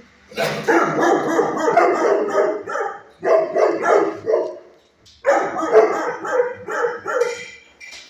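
Dogs barking rapidly in three long runs with short pauses between them.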